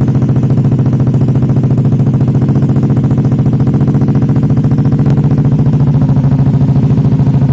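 Yamaha Aerox 155 scooter's single-cylinder four-stroke engine idling steadily through an aftermarket Austin racing exhaust, with a loud, even pulsing beat.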